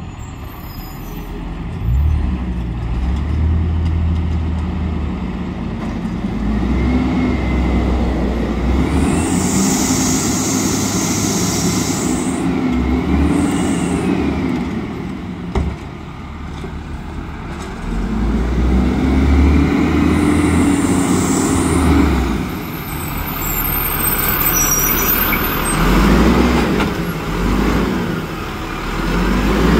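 Automated side-loader garbage truck's diesel engine running as it approaches and pulls up, with three long hisses of its air brakes. Near the end the engine revs up and down several times as the hydraulic arm reaches out toward the bins.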